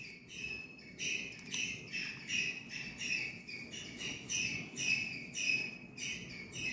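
A regular series of short, high chirps, about three every two seconds, from a small chirping animal in the background.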